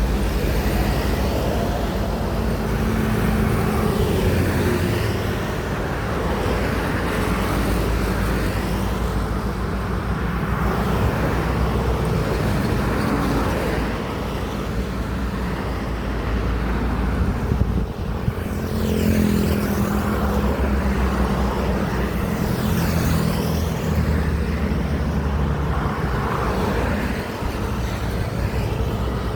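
Highway traffic dominated by heavy trucks: a steady drone of large diesel engines and tyre noise, with vehicles passing one after another.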